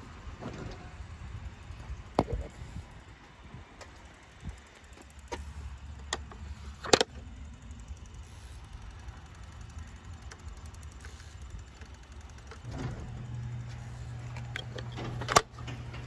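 Electric garage door opener running as the sectional door travels: a steady low motor hum that gets louder about three-quarters of the way through. A few sharp clicks and knocks come through it, the loudest near the middle and one just before the end.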